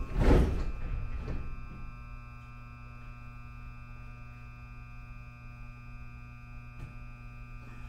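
Seoul subway car's sliding doors shutting with a thud just after the start, then a steady electrical hum with a faint high whine from the train standing at the platform.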